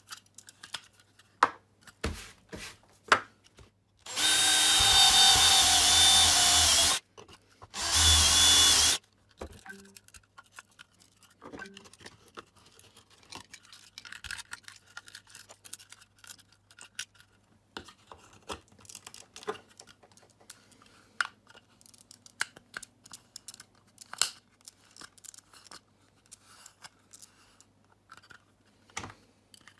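Power drill with a step drill bit boring a 20 mm hole in a project box, in two bursts of about three seconds and one second, a few seconds in. After that, faint scattered clicks and scrapes of the box and tools being handled.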